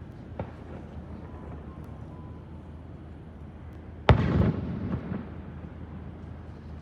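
An aerial firework shell bursting about four seconds in: one sharp, loud bang followed by about a second of crackling rumble that dies away. A faint pop comes about half a second in, over a steady low background rumble.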